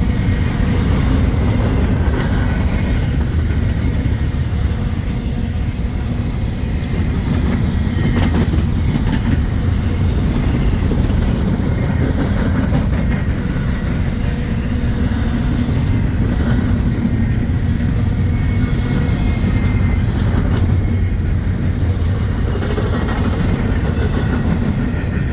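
Union Pacific freight train rolling past, a steady heavy rumble of wheels on rail with a few brief high squeals from the wheels.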